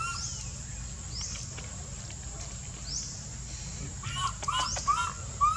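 Baby long-tailed macaque crying with short, arched, high-pitched calls: one at the start, then a quick run of four or five about four seconds in.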